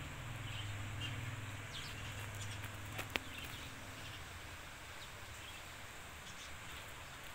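Outdoor garden ambience with scattered brief, faint bird chirps, a low hum through the first half, and one sharp click about three seconds in.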